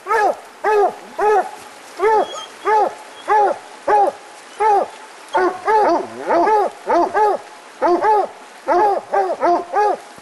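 Coonhounds barking treed, a steady run of short chop barks about two a second, the barks overlapping at times, stopping just before the end. The tree bark signals a raccoon held up the tree.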